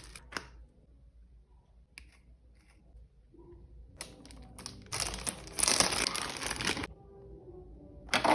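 Packaging crinkling and tearing as a beauty-product parcel is unwrapped: a few soft rustles and clicks, then a long loud crinkle from about five to seven seconds in, and a short burst again at the end.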